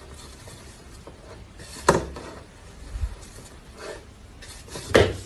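Two sharp knocks or clatters, about two seconds in and near the end, with a few softer knocks between, over steady background noise.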